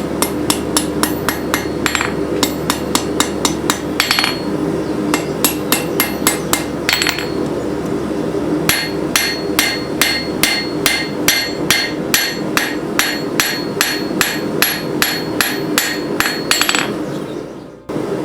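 Blacksmith's hammer striking hot steel on an anvil in quick, steady blows, about three a second, with a brief pause partway through, over a steady hum underneath.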